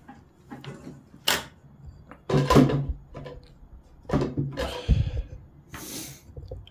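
Clunks and thumps of a Suzuki DR125's kick-start being kicked over, turning its stiff single-cylinder engine with the spark plug out to check for spark. The loudest clunk comes about two and a half seconds in, with more a couple of seconds later.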